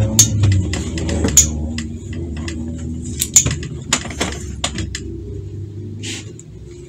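Scattered sharp clicks and snips, typical of fabric scissors cutting notches into cloth and being handled, with a brief rustle of fabric about six seconds in. A low steady hum underlies them and fades toward the end.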